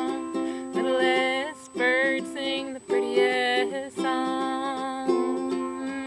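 Ukulele strummed steadily, with a voice singing a melody over it in several phrases.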